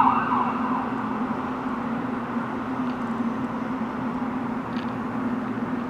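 A steady, unexplained low droning hum from outside, one constant tone with a noisy wash over it and no breaks, slightly louder at the very start.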